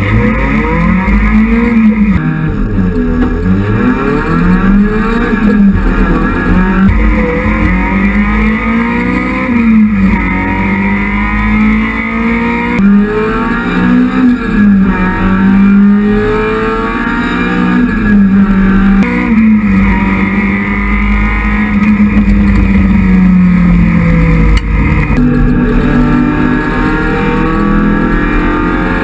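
Citroën Saxo race car's engine heard from inside its cabin, driven hard: the pitch climbs, then drops sharply at each gear change, about every five to six seconds, and swings up and down between them.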